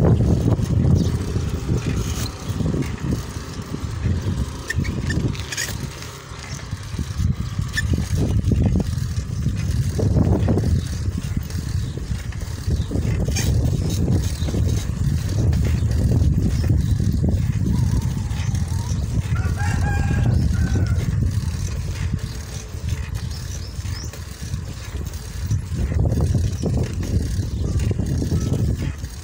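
Wind buffeting the microphone of a camera carried on a moving bicycle, a low rumble that swells and eases. A rooster crows once, about twenty seconds in.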